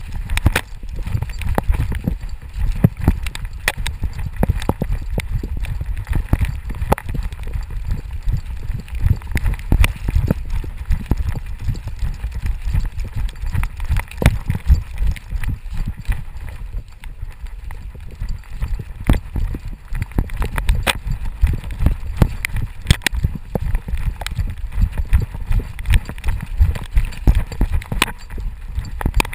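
A running dog's strides jolting the GoPro strapped to its Fetch harness: a steady run of thumps and knocks over a low rumble.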